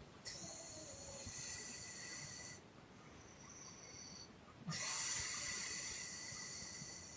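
A sleeping woman puffing out two long, hissing breaths about four seconds apart, each starting abruptly and tailing off.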